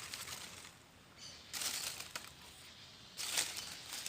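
Dry leaves and brush rustling and crunching in two bursts of about a second each, one partway through and one near the end.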